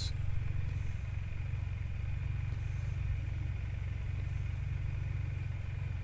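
Can-Am Spyder F3's Rotax three-cylinder engine idling steadily at a standstill, a constant low hum.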